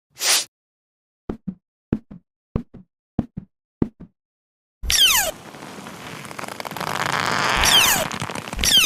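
Cartoon-style sound effects: about ten short, soft knocks in pairs, then a falling whistle and a long noisy whoosh that swells louder, with two more falling whistles near the end.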